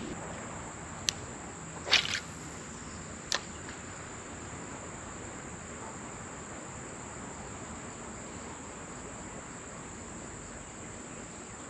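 Fishing rod being cast: a sharp click, a short whip-like swish about two seconds in, then another click. Under it a steady hiss of flowing river water with insects buzzing.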